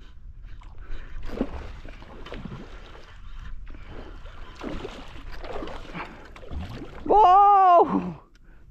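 Shallow water sloshing and swishing in irregular strokes, as when someone wades through it. Near the end comes a loud drawn-out cry, about a second long, that rises and then falls in pitch.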